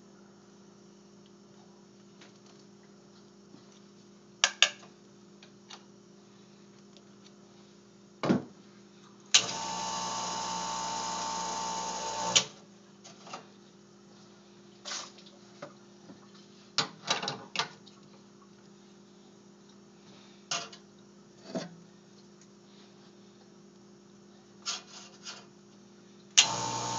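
Rancilio Silvia espresso machine's vibratory pump runs for about three seconds a third of the way in, water rushing through the empty group head in a flush, and starts again just before the end as the shot begins. Scattered knocks and clicks of tamping and handling the portafilter and cup come in between.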